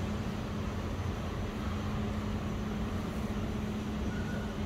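Steady mechanical hum with a low rumble underneath.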